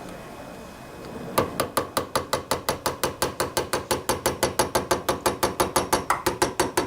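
Rapid, even hammer taps on a screwdriver set at an angle in a notch on a headless carburetor float bowl screw, about six or seven a second, starting about a second and a half in. The tapping is knocking the tamper-proof screw round to break it loose.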